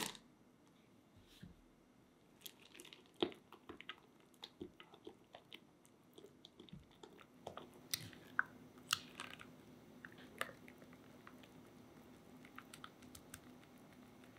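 Spatula stirring dark chocolate pieces into thick hot custard in a saucepan: soft scraping and squishing with many light clicks against the pan, fewer after about ten seconds as the chocolate melts smooth.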